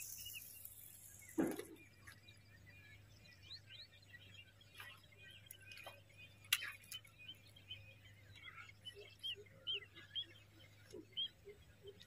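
Small birds chirping over and over. About one and a half seconds in there is a soft splash as the cast frog lure lands on the water, and a couple of sharp clicks come later.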